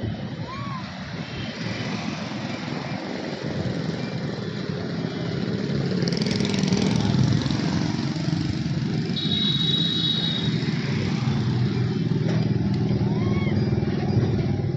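Motor vehicle engine noise, steady, growing louder about six seconds in, with a short high tone about nine seconds in.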